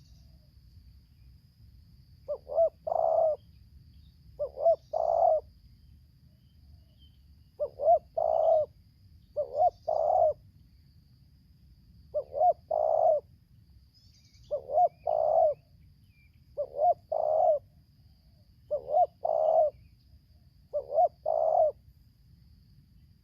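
Spotted dove (tekukur) cooing: nine repeated coo phrases about two seconds apart, each made of two short notes followed by a longer one.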